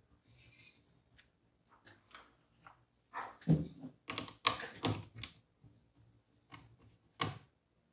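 Scattered small clicks, taps and light knocks of a screwdriver and fingers working at a laptop's open chassis while taking out its battery, with a cluster of louder knocks about three and a half to five seconds in and one more sharp click near the end.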